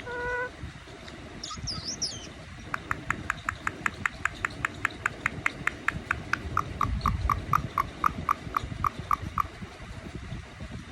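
Indian ringneck parrot calling. A meow-like call trails off at the start, then comes a short high whistle. After that it gives a long, even run of short chirps, about five a second, that drop lower in pitch partway through.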